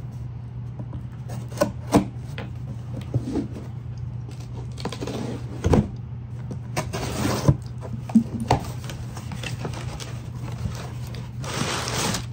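Cardboard shipping box being cut open with a knife and its flaps worked loose: scraping and rubbing of blade and cardboard, with scattered knocks and a longer scraping rustle near the end. A steady low hum runs underneath.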